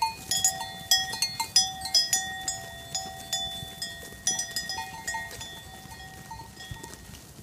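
Bells worn by a grazing flock of sheep clanking irregularly as the animals move, with many overlapping ringing strikes that thin out and grow fainter over the last few seconds.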